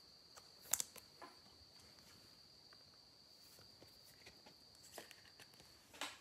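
Near silence with a few faint clicks and taps of trading cards being handled, the clearest about a second in, over a faint steady high-pitched whine that stops shortly before the end.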